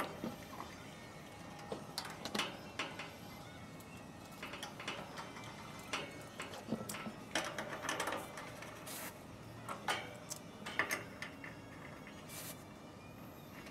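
Scattered light clicks, taps and rustles of hands working inside a heat pump's outdoor unit, among its wiring and copper refrigerant fittings.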